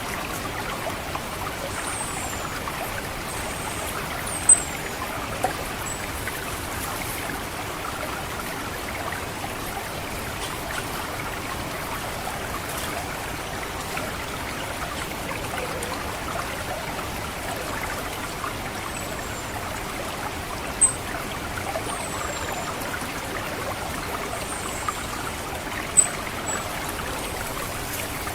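Water trickling steadily through a rice paddy, with an orange-headed thrush's thin, high 'cit' call notes, each a quick downward slide, coming singly or in small clusters near the start and through the second half.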